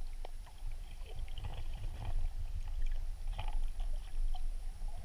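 Underwater sound picked up by a camera in a waterproof housing: a low rumble of moving water against the housing, with scattered small clicks and crackles.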